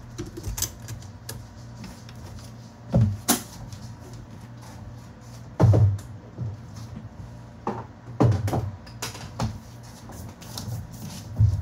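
Kitchen clatter as the flour canister is closed and put away: a string of sharp knocks and thuds at irregular intervals, some heavier, over a low steady hum.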